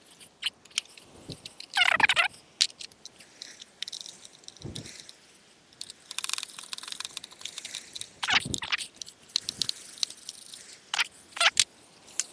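Small metal motorcycle parts and hand tools clinking, clicking and rattling as a washer is fitted, with a longer scraping rattle about two seconds in and a few sharp clicks near the end.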